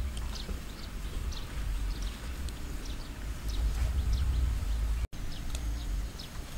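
Wind buffeting the microphone in a low, uneven rumble, with small birds chirping in short, repeated falling notes.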